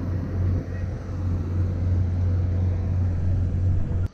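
A steady low rumble with a faint steady hum above it, which cuts off suddenly near the end.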